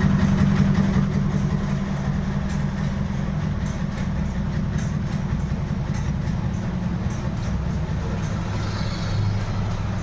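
Steady low mechanical hum, easing off a little about two seconds in.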